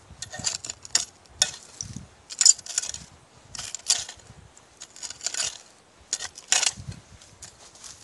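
Digging tool scraping and clinking through dump soil full of broken glass and metal debris, in a string of irregular strokes, roughly one or two a second.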